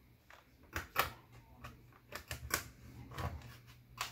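Snap clips of an HP Pavilion x360 laptop's bottom case clicking as a nylon pry tool is worked along the tight-fitting seam to pop the case apart. It is a string of sharp, irregular clicks, the loudest about a second in.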